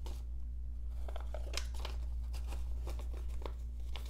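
US dollar bills rustling and crinkling as they are handled and slid into a cash envelope in a binder wallet, in short scattered crackles over a steady low hum.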